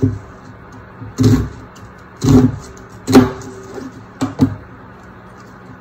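Kitchen knife slicing through a red onion and knocking on a bamboo cutting board: five separate knocks about a second apart, the last two in quick succession.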